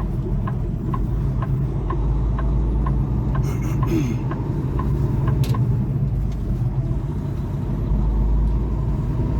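Semi truck's diesel engine running steadily, heard from inside the cab, with light regular ticks about three a second.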